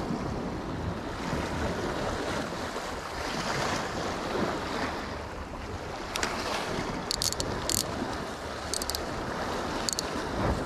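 Sea waves washing against shoreline rocks, with wind buffeting the microphone. A few short, sharp high clicks come in the second half.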